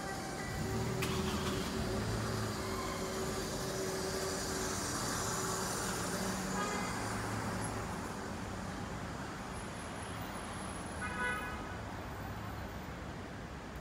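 City street traffic: cars running and rolling past in a steady mix, louder over the first few seconds as a vehicle goes by. A short high-pitched tone sounds about eleven seconds in.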